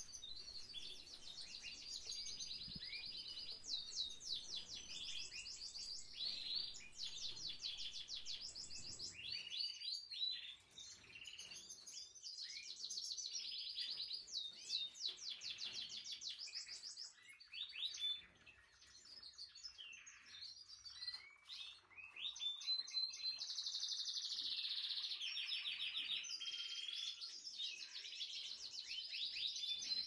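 Canaries singing: long trills and rolling runs of rapidly repeated high notes, several songs overlapping, with a couple of short lulls.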